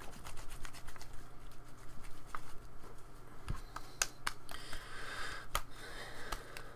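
Hands squishing and stretching soft fluffy slime putty, giving scattered small sticky clicks and crackles, with a couple of brief rustling squelches in the second half.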